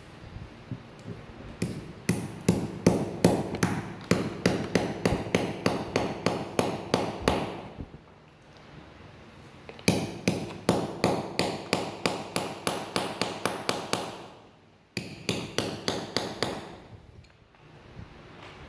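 Hammer striking to drive a ball bearing into a brush cutter's gear head housing: rapid, ringing metal-on-metal taps, about four a second, in three runs with short pauses between.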